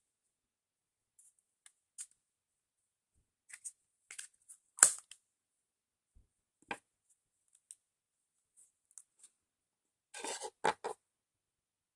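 Scattered small clicks and rustles of toy packaging being handled, with the sharpest click about five seconds in and a quick run of crinkles and clicks near the end.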